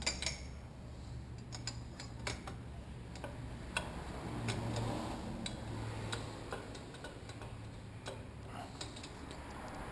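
Scattered, irregular light taps and clicks as the damper is tapped back up inside a motocross fork leg.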